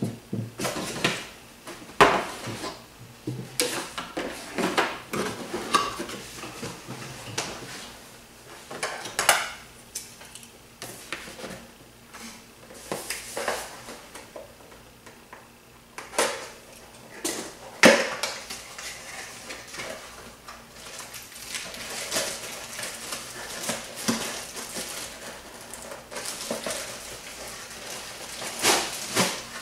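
Hard plastic parts and packaging of a Cheerson CX-20 quadcopter being handled as they are unpacked: irregular clicks, knocks and clatter with rustling between them, and sharper knocks about 2 s and 18 s in.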